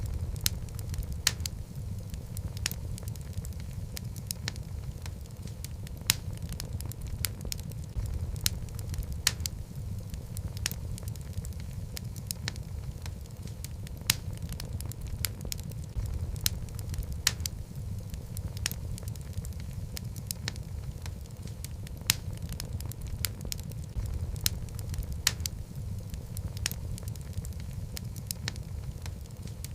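Wood fire of logs burning in a fireplace, with a steady low rumble of flames and irregular sharp crackles and pops.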